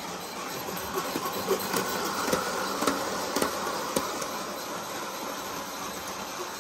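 Bachmann G-scale Percy model train running on its track: a steady electric-motor whir with the wheels of the engine and its trucks clicking over the rail joints. The clicks come thickest and loudest from about one to four and a half seconds in.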